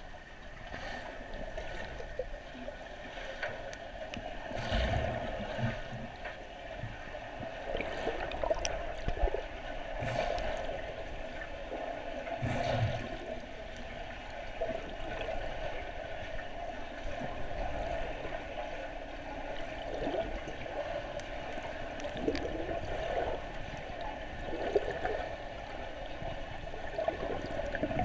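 Muffled underwater pool ambience heard through a submerged camera: a steady watery rush and gurgle, with a few dull knocks along the way.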